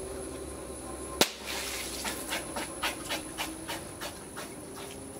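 Plastic Coke bottle bursting under water pressure from a high-pressure pump, a single sharp bang about a second in. A brief hiss of spraying water and a run of irregular clicks and spatters follow it, over a steady hum of the pump.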